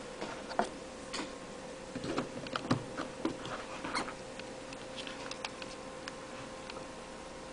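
Scattered small plastic clicks and taps of a Motorola mobile phone and its battery being handled, thinning out after about five seconds, over a steady faint hum.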